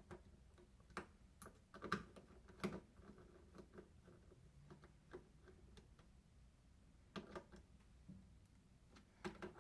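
Faint, irregular clicks and taps of a screw being driven by hand into thin sheet metal as a refrigerator water valve is fastened, with a short cluster of clicks near the end.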